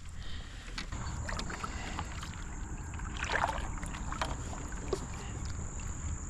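Legs wading through shallow river water, with uneven splashes and sloshes; the biggest splash comes a little past halfway. A steady high-pitched whine starts about a second in.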